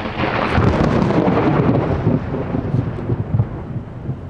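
Thunder from a cloud-to-ground lightning strike: a loud crackling crash that rolls into a low rumble and fades over about three seconds.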